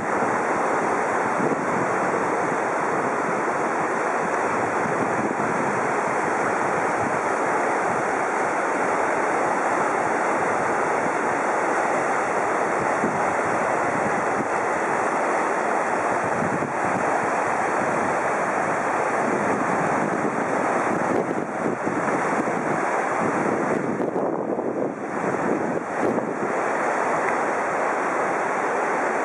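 Mountain river rapids of the Chemal River: a steady, unbroken rush of whitewater over rocks.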